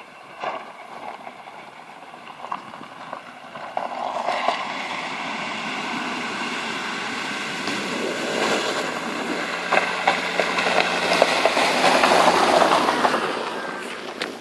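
A vehicle fording a river, with water splashing and rushing. It grows louder from about four seconds in, is loudest near the end with a low steady hum under it, then eases off.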